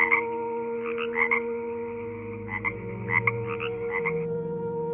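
Frog calling in short croaks, mostly in pairs, about once a second, over a steady humming drone.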